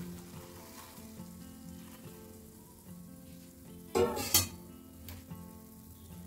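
Boiled water being poured over cut taro stalks in a steel bowl, a soft watery hiss, with a short, louder splash about four seconds in. Faint background music runs under it.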